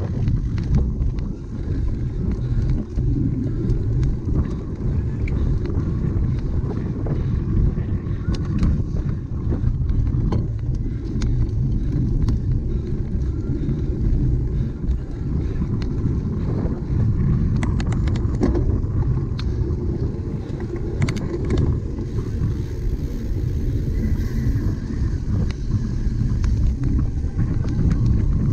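Wind buffeting the microphone over the rumble and rattle of a cyclocross bike ridden across rough ground, with scattered sharp clicks and knocks.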